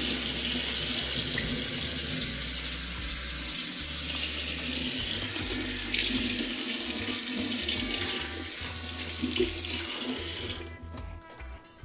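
Kitchen faucet running into a stainless steel sink while green onions are rinsed under the stream. The water is shut off near the end, leaving a few small clicks.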